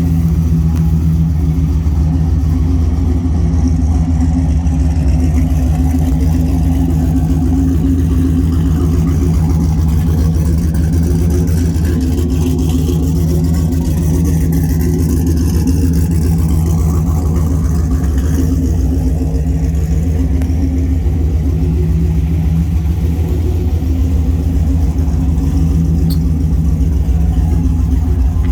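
Vehicle engine idling steadily, a low, even note that holds the same pitch throughout.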